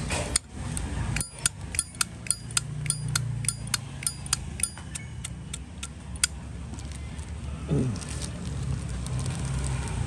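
Zippo lighter lid being flicked open and snapped shut over and over: a quick run of about a dozen sharp metallic clicks, roughly three a second, then a single click a little later.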